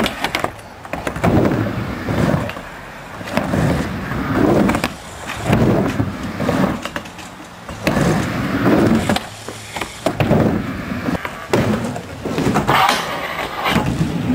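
Skateboard wheels rolling on concrete and a ramp, the rumble swelling and fading every second or two as the skater rides back and forth, with sharp clacks of the board and trucks.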